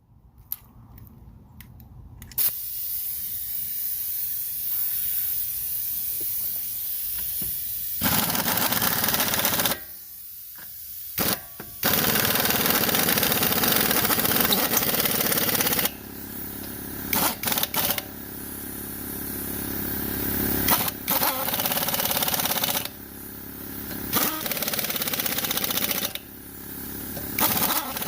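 Impact wrench running in several runs of a few seconds with short stops between them, driving the lug nuts back onto a truck wheel.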